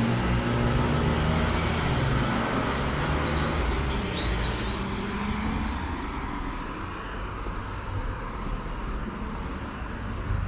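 Street traffic at a busy intersection: vehicle engines running and tyre noise, with one engine's drone shifting in pitch over the first few seconds. A few short rising chirps of small birds come through about three to five seconds in.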